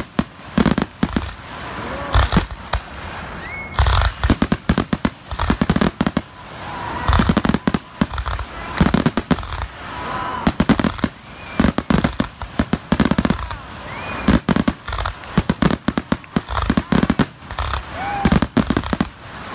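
Fireworks going off in rapid volleys of sharp bangs and crackles, with dense clusters coming every second or two.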